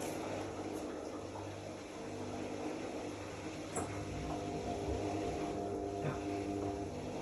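Zanussi AquaCycle 500 FA 623 washing machine running, with water moving inside. A sharp click comes about halfway in, after which a steady hum of several tones sets in.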